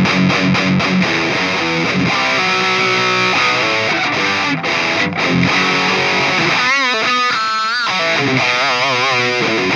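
Distorted electric guitar played through the Flatsons KE1 multi-effects pedal on its Eagle Savage high-gain amp model: repeated low riff notes, then lead notes bent and shaken with wide vibrato from about seven seconds in.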